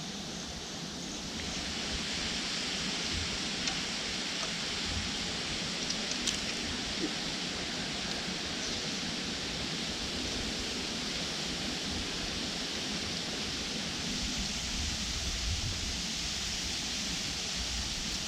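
Steady rushing hiss of flowing river water, which grows louder about a second and a half in, with some low wind rumble on the microphone.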